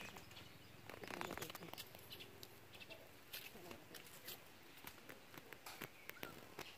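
Quiet background with faint, scattered clicks and taps, a little louder about a second in.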